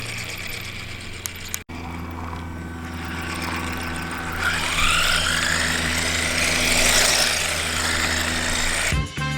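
Electric motor and gears of a 1/14-scale four-wheel-drive RC truck running, with a steady hum; about halfway through a whine rises and falls in pitch as it speeds up and slows.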